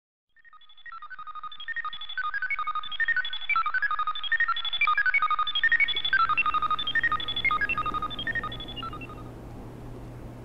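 Intro music: a quick melody of short, high-pitched notes that swells in over the first couple of seconds and fades out near the end. A low steady hum comes in about halfway through.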